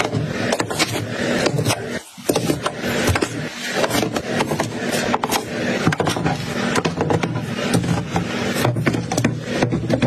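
Plastic food packaging crinkling and rustling, with packs, fruit and small cartons tapping and clacking against plastic fridge bins and shelves as they are set in place. There is a brief drop-out about two seconds in.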